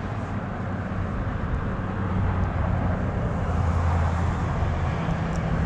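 A passing engine: a steady low hum over a rush of noise that builds to a peak about four seconds in and then eases slightly.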